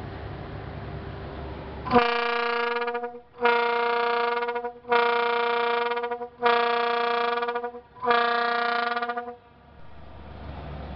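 Pontoon bridge's signal horn blown five times, each blast just over a second long with short gaps between. The horn signal means the bridge is about to close back up after the boat has passed.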